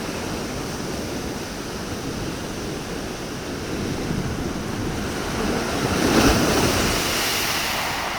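Rough sea surf: a steady rushing wash of waves, with one wave building and breaking loudest about six seconds in, then subsiding.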